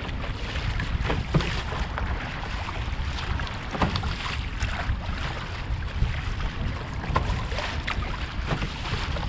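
Wooden canoe paddles dipping and splashing in choppy river water, a stroke every second or so, with water sloshing around the canoe. Wind buffets the microphone with a steady low rumble throughout.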